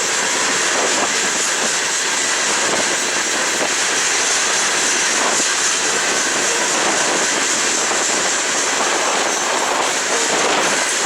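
Coal train cars rolling past on steel rails, a steady rush of wheel and rail noise.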